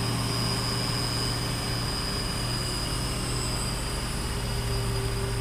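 Diesel engine of a heavily loaded Hino 500 wing-box truck pulling uphill under load, a steady low drone.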